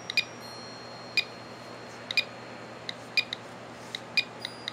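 GQ GMC-300 Geiger counter clicking at irregular intervals, about two sharp clicks a second, each click a count of radiation from the thorium glass in a Super-Takumar 55 mm f/2 lens.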